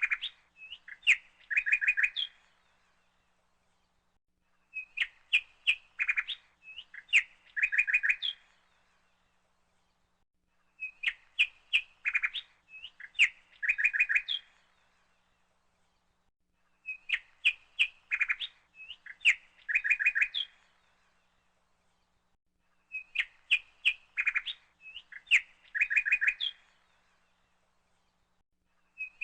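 A short phrase of bird chirps plays about every six seconds, the same each time, with silence between: a looped bird-chirping sound clip.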